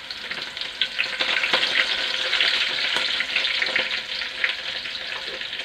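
Crushed shallots, garlic and fresh curry leaves sizzling and crackling in hot coconut oil in a pan: a dense, steady sizzle full of small pops.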